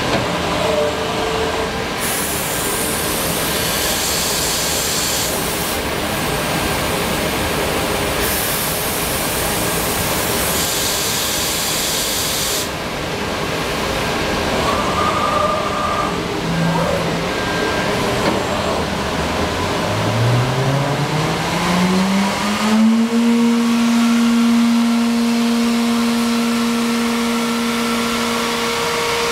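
Masterwood 5-axis CNC machining centre running, with a dense mechanical noise and two long stretches of high hiss in the first half. About twenty seconds in, a motor whine rises in pitch over about three seconds and then holds steady.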